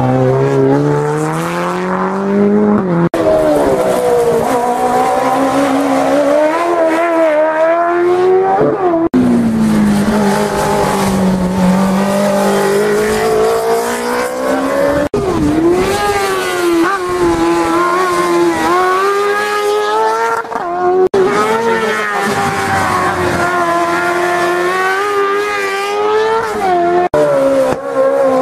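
Race car engines revving hard and rising and falling in pitch through gear changes as one car after another takes the bends, with some tyre squeal. The sound breaks off abruptly about every six seconds as it jumps from one car to the next.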